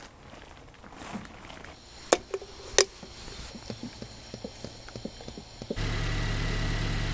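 Scattered clicks and knocks of hand work on a car, then, a little over two thirds of the way in, a high-mileage Honda Accord engine (close to 400,000 km) is suddenly running and idles steadily, with a thin steady high tone over the hum. It is idling on freshly changed oil with no flush product yet added.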